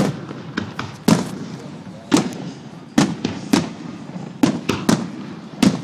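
Aerial firework shells bursting over a lake: a quick, uneven string of about a dozen sharp booms, each trailing off briefly.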